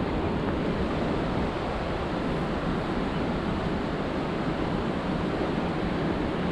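Fast river water rushing through white-water rapids, a steady, even noise with no breaks.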